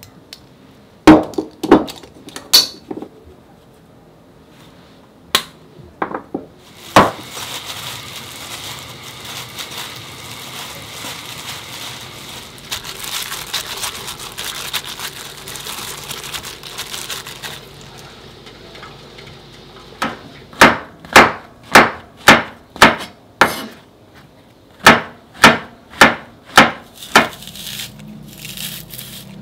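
A few clinks of a glass jar against a stainless steel bowl, then about ten seconds of hands mixing seasoned dried bracken in a bowl. Near the end, a kitchen knife chops mushrooms on a cutting board in two quick runs, about two strokes a second.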